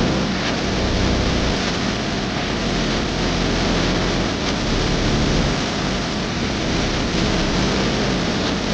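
Steady rushing road and wind noise of a moving vehicle, with a low rumble underneath.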